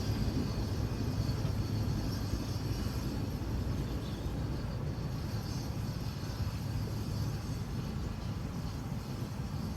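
Steady low rumble of a railway train running along the line.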